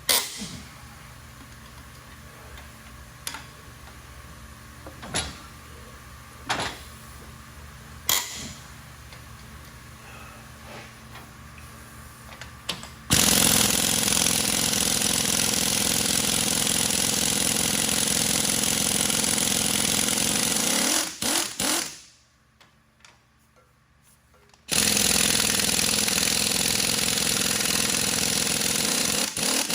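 Several sharp knocks, then a power tool running hard in two long steady stretches, about eight and five seconds, each stopping with a few short blips.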